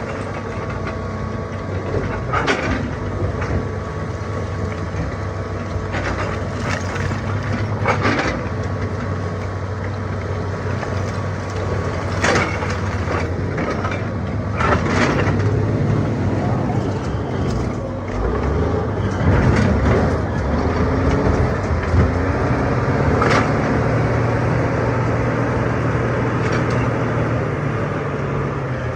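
Excavator's diesel engine running steadily under load, louder in the second half, with a dozen or so sharp cracks and knocks of rock breaking and shifting under the bucket at irregular intervals.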